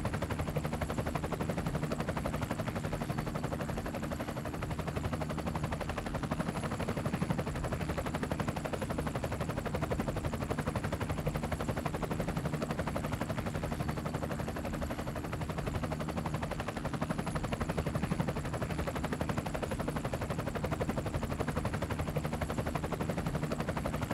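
Multirotor drone's motors and propellers heard close up, a steady fast-pulsing whir with a constant pitch.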